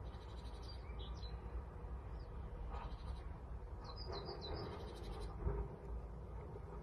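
Steady low outdoor rumble with a few short, high bird chirps, a cluster about a second in and another about four seconds in.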